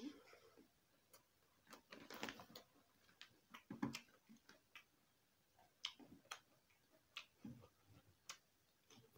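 Faint eating sounds: chewing and wet mouth clicks, with scattered clicks and scrapes of a fork on a plastic plate.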